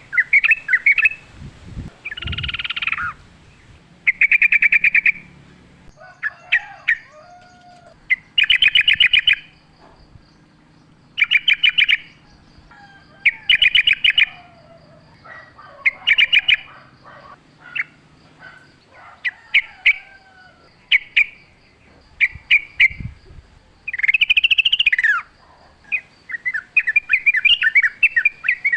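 Yellow-vented bulbul (trucuk) singing: bubbling phrases of rapid notes about a second long, repeated every two seconds or so, with short calls between.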